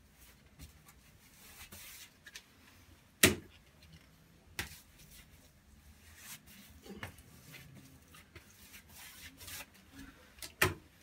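Wide paste brush stroking thin wallpaper size onto a filled plaster wall: soft, intermittent swishes of bristles on the wall, with a few sharp knocks, the loudest about three seconds in.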